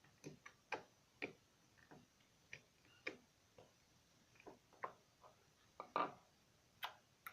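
Thick clear slime, freshly mixed with borax activator, being squeezed and kneaded in the hands, giving a string of short, irregular sticky clicks and pops.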